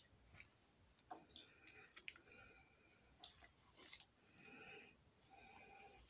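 Faint plastic clicks and handling noise from over-ear headphones and their cable being turned over in the hands, against otherwise near-silent room tone.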